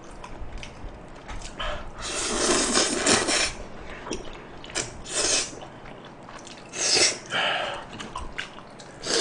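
A person slurping saucy stir-fried instant noodles off chopsticks and chewing: a long slurp about two seconds in, then shorter slurps near the middle and toward the end, with wet chewing between.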